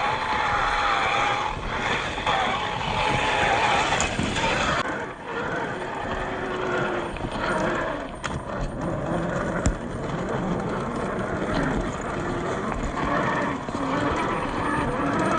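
Radio-controlled Jeep Cherokee model driving over rough ground, its motor and gears whining at a wavering pitch as the throttle changes, with scattered clicks and rattles from the chassis and tyres on the uneven surface.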